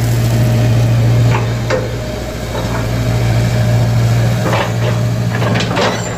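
Hitachi Zaxis 225USR-3 excavator's diesel engine running under load with a steady drone and a fainter hydraulic hum, as the machine digs and swings a bucket of gravel; the throttle is back to full power after a throttle-dial harness fault was fixed. Stones knock and rattle a couple of times about a second and a half in, and again several times near the end.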